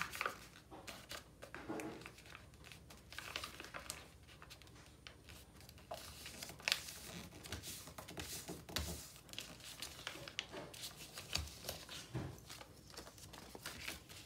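Sheet of recycled paper rustling and crinkling in irregular short crackles as it is folded, opened out and creased flat by hand.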